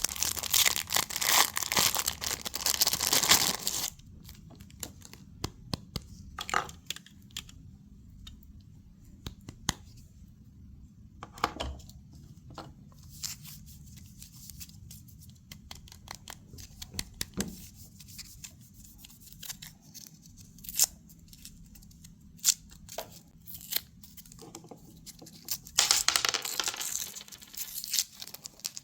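Candy packaging being torn open and crinkled close up, in a dense spell at the start and again near the end, with scattered small clicks and taps from handling the contents in between.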